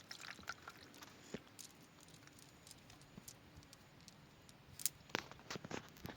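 Faint, irregular clicks and taps, more of them about five seconds in.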